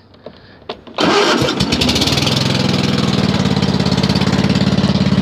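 Toro LX500 riding mower's twin-cylinder engine started: after a couple of faint clicks it is cranked about a second in, catches almost at once, and settles into a steady, even run. The owner suspects it may be running on only one cylinder, though he doubts it.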